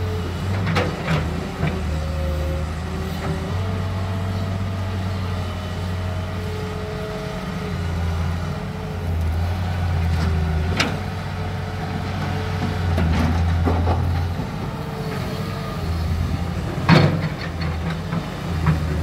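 Cat 325BL excavator's diesel engine running under load as it digs and swings, its low hum swelling and easing, with a whining tone that drifts up and down in pitch. Sharp knocks and clanks of the bucket and its load of rock and mud come now and then, the loudest near the end.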